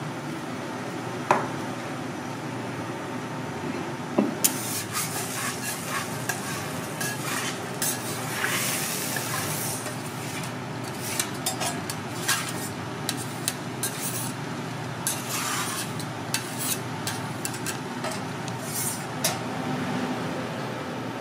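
Food sizzling on a teppanyaki griddle, the hiss swelling twice, with metal utensils clicking and clattering throughout, over a steady hum.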